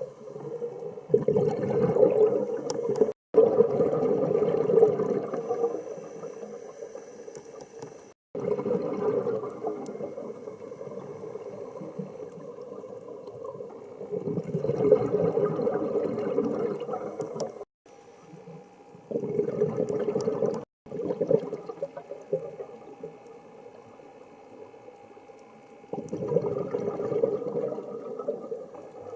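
Scuba diver breathing through a regulator, heard underwater: loud bursts of exhaled bubbles every few seconds, with quieter hissing between them.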